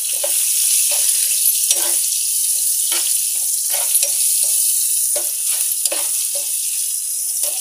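Sliced onions, curry leaves and spices sizzling in hot oil in a nonstick frying pan, stirred with a metal spoon that scrapes the pan in short strokes about twice a second.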